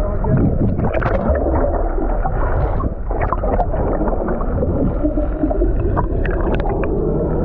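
Muffled underwater noise from a camera below the surface: a steady low hum with water gurgling and scattered clicks.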